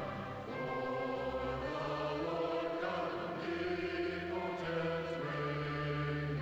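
A choir singing a sacred piece in slow, held chords that change every second or so.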